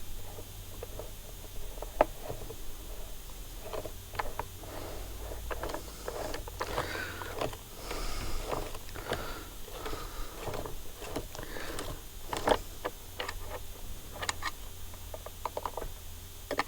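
Scattered clicks, taps and scrapes of brushcutter parts being handled while a new cutting head is fitted, with a sharp click about 2 s in and a cluster of louder knocks past the middle. A low steady hum runs underneath.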